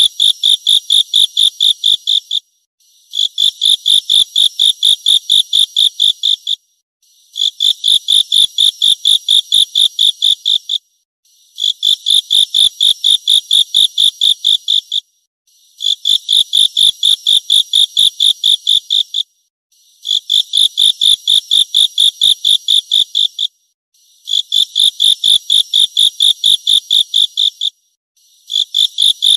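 Grasshopper stridulating: high, buzzy trains of about three pulses a second, in bouts of about three and a half seconds broken by short pauses, repeating evenly.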